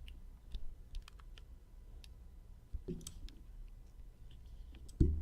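Scattered light clicks and taps from desk handling, with a low thump near the end.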